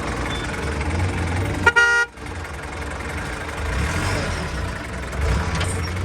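A vehicle horn gives one short, loud honk about two seconds in, over the low rumble of running engines.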